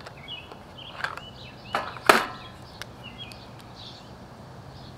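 Items rattling in a plastic supply caddy as a paint marker is picked out, with a sharp clunk about two seconds in as the caddy is set down on the table. Small birds chirp in the background.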